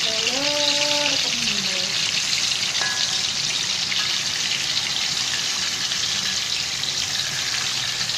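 Battered banana fritters deep-frying in hot oil in a wok: a steady, even sizzle of bubbling oil.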